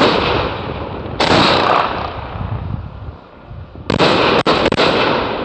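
Aerial fireworks bursting overhead: three loud booms, the second about a second after the first and the third nearly three seconds later, each trailing off in a long fading crackle.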